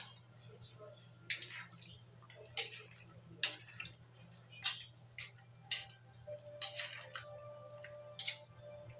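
A metal ladle knocking and scraping against an aluminium wok while stirring chicken and vegetable broth, with about nine sharp clinks at uneven intervals and some splashing of liquid.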